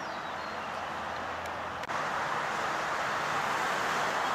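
Steady traffic noise from cars and trucks passing on a road, breaking off for an instant about two seconds in and then continuing a little louder.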